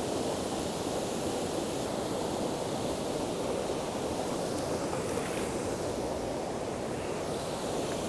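Steady rush of whitewater pouring over a small river waterfall and rapids.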